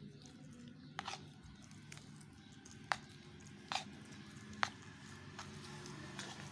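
A metal spoon stirring thick, wet pakora batter in a bowl: a soft squelching, with four sharp clicks as the spoon knocks against the bowl.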